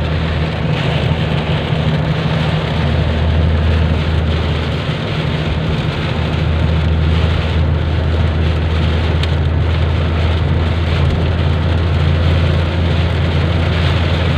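Heavy rain drumming steadily on a car, heard from inside it, over the steady low rumble of the car and road.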